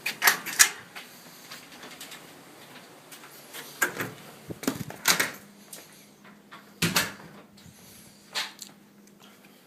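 A handful of sharp knocks and clunks at uneven intervals, two close together at the start and single ones further on, over a quiet background.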